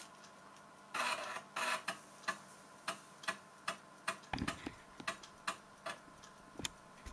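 Floppy disk drive of a Schneider Euro PC reading as GW-BASIC loads: two short noisy bursts about a second in, then steady clicking about three times a second as the drive head steps.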